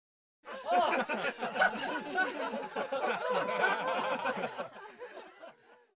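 Several voices laughing and chuckling together, cutting in abruptly about half a second in out of dead silence and trailing off over the last second.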